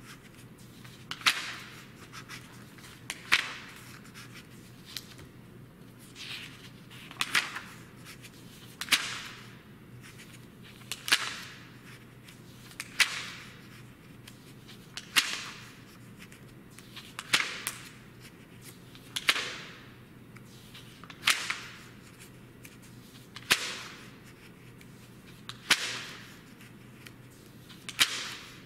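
Glossy pages of a thick print magazine turned by hand one at a time, each turn a quick swish ending in a sharp snap of paper, about every two seconds.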